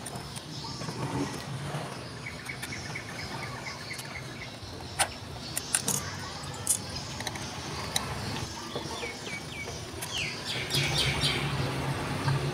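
A few sharp plastic clicks and taps as a boombox's rear panel is unscrewed and lifted off, with small birds chirping: a rapid run of chirps, then a few short falling chirps near the end.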